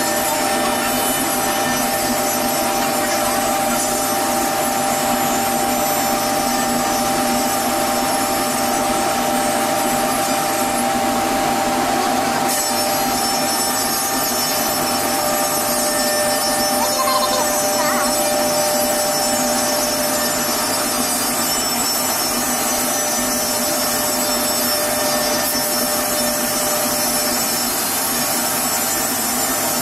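SCM Morbidelli CX100 CNC panel machine cutting a melamine chipboard panel: the spindle runs with a steady whine over a dense rush of cutting noise.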